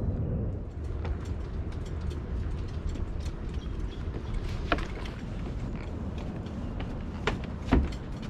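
Walking sounds: footsteps and carried fishing gear creaking and clicking, over a steady low rumble. There are a few sharper knocks a little past halfway and twice near the end, as feet land on wooden boardwalk steps.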